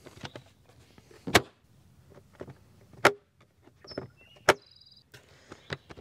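Plastic lid latch lever of a SetPower TC35 12-volt fridge being worked, snapping shut with three sharp clicks about a second and a half apart and a few lighter ticks in between. The firm snap is the sign of a solid, slop-free latch.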